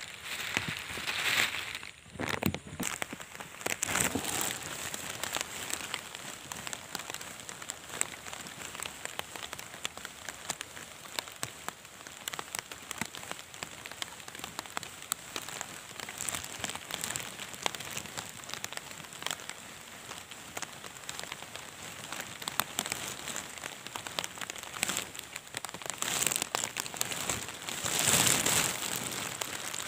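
Steady rain pattering, with drops falling on open water. It swells louder about a second in, around four seconds in, and again near the end.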